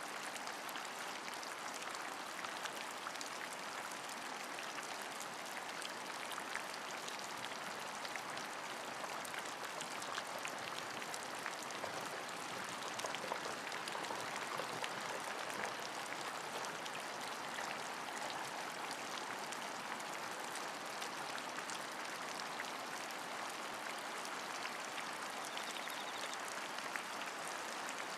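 Steady rain: an even hiss dotted with many small, sharp drop ticks.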